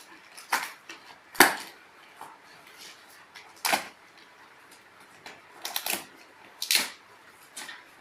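Laptop packaging being handled and unpacked: a series of short rustles and knocks, about seven in all, the loudest about one and a half seconds in.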